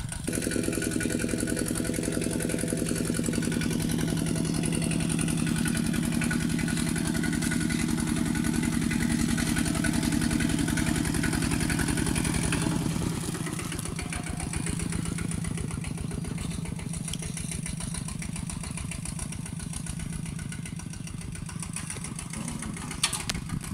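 Kubota two-wheel walking tractor's single-cylinder diesel engine running steadily under load as it tills, with a fast, even beat. It grows somewhat quieter about halfway through as the tractor moves away.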